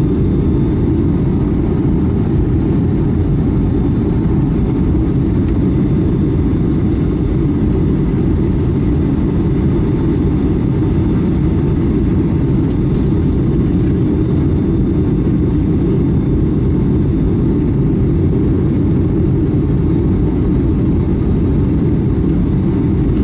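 Cabin noise inside a Boeing 757-300 on approach with flaps extended: a loud, steady low rumble of engines and airflow, with a faint steady whine on top.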